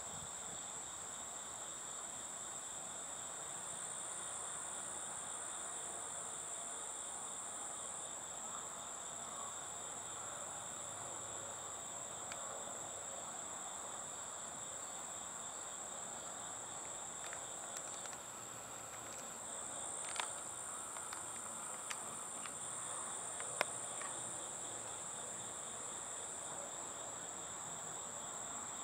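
Steady chorus of late-summer insects, a constant high-pitched trill. A few sharp clicks come about two-thirds of the way in.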